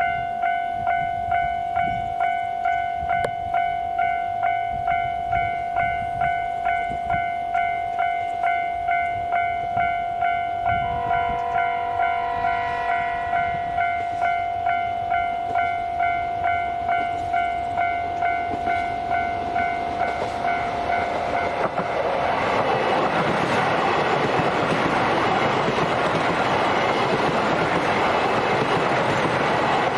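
Level-crossing bell ringing at a steady pace, about two strikes a second. A train gives a short horn blast about eleven seconds in. From about twenty-two seconds the train passes over the crossing, and the rumble and clatter of its wheels drown out the bell.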